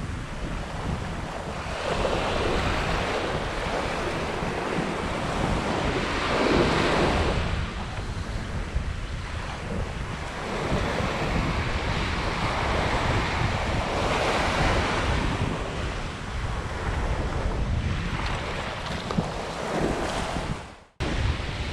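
Small surf breaking and washing up the sand at the water's edge, swelling and fading about every four seconds, with wind rumbling on the microphone. The sound cuts off abruptly near the end.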